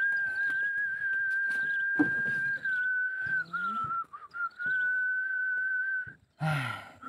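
A high, steady whistle-like tone held for about six seconds with a slight waver, dipping a little in pitch about three and a half seconds in. It breaks off near the end for a short noisy burst, then comes back slightly lower.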